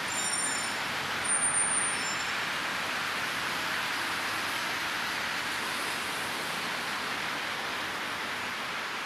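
Steady outdoor hiss of road traffic, with a few short high-pitched squeaks in the first two seconds.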